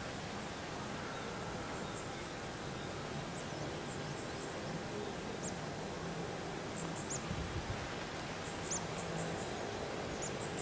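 Outdoor field ambience: a steady hiss with faint, brief high chirps scattered through, from birds or insects, and a few soft low thumps about two-thirds of the way through.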